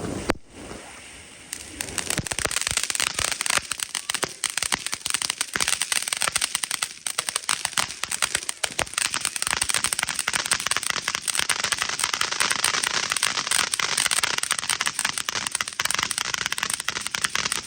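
Fireworks going off as a long, dense run of rapid firecracker pops and crackling. It starts about two seconds in and keeps on for some fifteen seconds.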